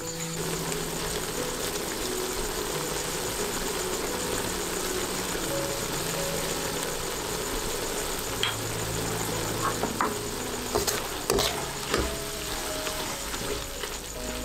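Pork intestines and pickled mustard greens sizzling as they stir-fry in a metal wok. A few sharp clicks of the ladle against the wok come in the second half, over soft background music.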